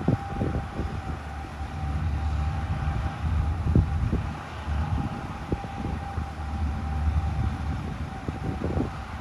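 Wind buffeting the microphone with low rumbling thumps over the steady drone of a distant beach-launch tractor engine, with a thin, steady hum above it. The strongest gust comes a little under four seconds in.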